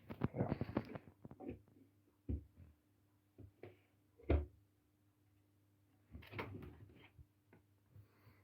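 Scattered light knocks and bumps of wood and a level being handled and set down on a wooden pallet table top, the loudest single knock about four seconds in, over a faint steady hum.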